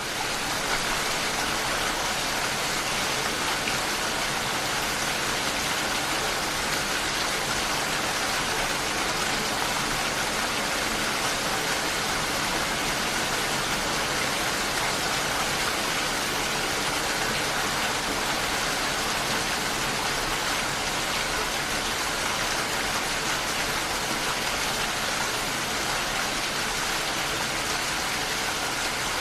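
Steady heavy rain: a dense, even hiss of falling drops with no breaks.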